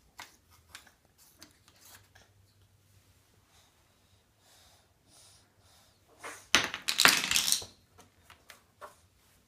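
Plastic fridge magnets clicking and tapping as a toddler handles them, with one loud clattering rustle lasting about a second, some six and a half seconds in.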